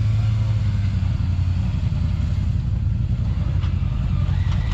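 Side-by-side UTV engine idling steadily with a low, even hum, with a few faint clicks near the end.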